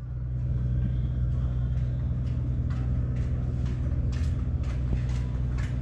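A steady low engine hum, like a motor idling, with a string of short sharp clicks over it, about two a second.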